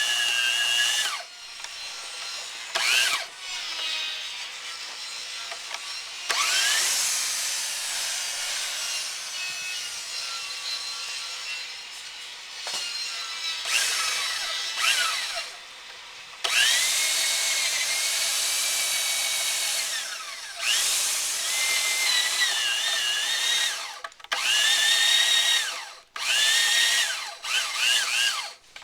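Electric drill with a 1.25-inch auger bit boring into wood, its motor whine starting and stopping again and again and dipping in pitch as the bit bites. It is boring a row of holes to rough out a mortise.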